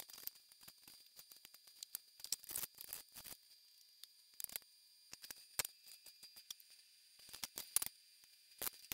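Irregular light clicks and taps of kitchen utensils, over a faint steady high hiss.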